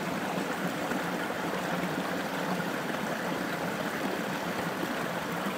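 Small creek cascade spilling over rocks into a shallow pool, a steady flowing and babbling of water.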